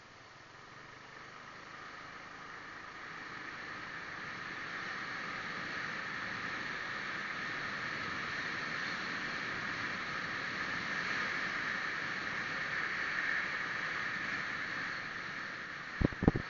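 Small motorcycle running while riding, a steady hum that grows louder over the first few seconds as it picks up speed, with sharp knocks right at the end.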